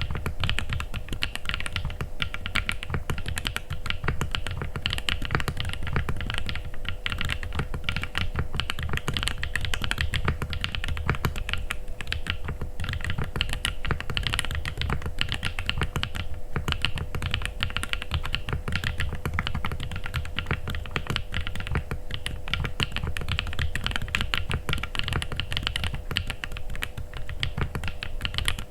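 Continuous fast typing on an AJAZZ AC067 mechanical keyboard with RK Misty Rain linear switches and Cherry-profile keycaps: a dense, unbroken stream of key presses, with a faint steady hum beneath.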